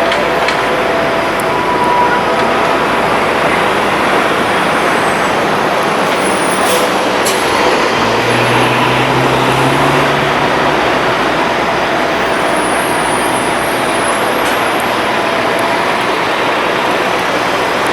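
Steady city street traffic noise, with a vehicle's low engine hum rising out of it for a few seconds in the middle.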